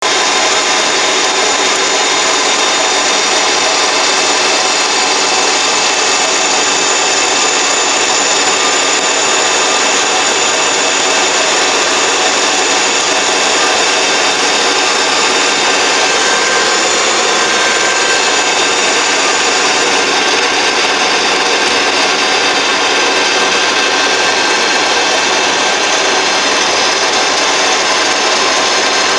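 Metal lathe boring out the inside of a spinning metal workpiece with a boring bar: a loud, steady scraping cut carrying many high ringing tones, the chatter of the boring bar in the bore.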